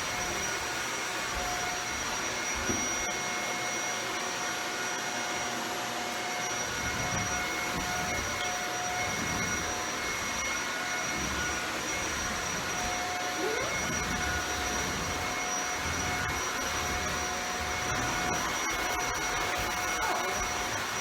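Shark Powered Lift-Away Rotator Speed upright vacuum cleaner running steadily: an even motor rush with a constant whine made of several steady tones.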